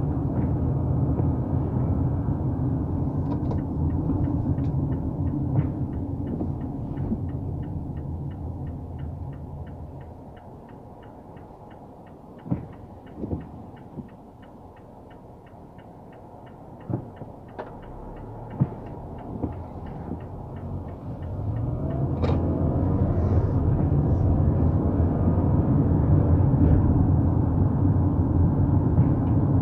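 Road and engine rumble inside a car's cabin that fades as the car slows to a stop, with the turn-signal indicator ticking steadily at about two to three ticks a second. A few separate knocks come while the car stands, and the rumble rises again near the end as it pulls away.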